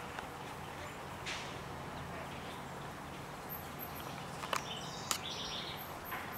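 Outdoor ambience with birds chirping faintly, high and repeated, plus two short sharp taps about four and a half and five seconds in.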